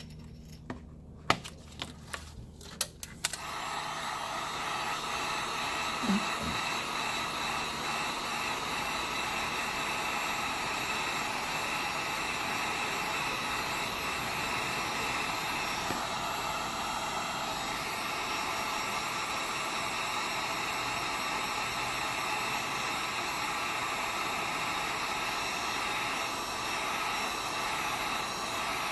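A few clicks, then about three seconds in a heat gun starts blowing and runs with a steady rush, heating the iPad Air's screen to soften the digitizer adhesive.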